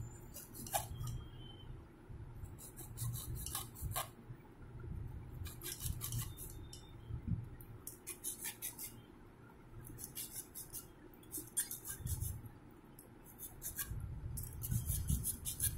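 Hacksaw blade held in the hand sawing around an armoured cable, through the PVC sheath into the steel wire armour, so the armour is cut halfway through. The blade scrapes in about nine short bursts of quick strokes with brief pauses between them.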